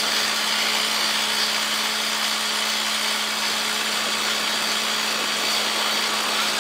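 Truck-mounted borewell drilling rig running while drilling, with compressed air blowing rock dust and cuttings out of the borehole. The result is a steady, even hiss with a constant hum underneath.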